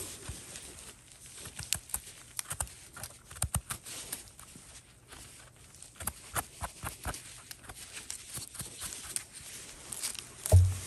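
Footsteps and rustling through dry forest leaf litter, with irregular crackles and snaps of twigs. There is a low thump near the end.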